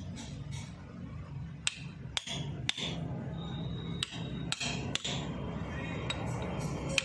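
A hammer striking an engine valve used as a drift, driving a new crankshaft rear main oil seal into a Mahindra 265 DI tractor engine: sharp metallic taps about half a second apart in short runs, several with a brief ring.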